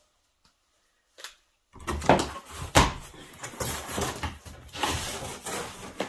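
A wood stove being worked out of its cardboard box: rustling and scraping of cardboard and packing with several sharp knocks. It starts suddenly a little under two seconds in, after near silence.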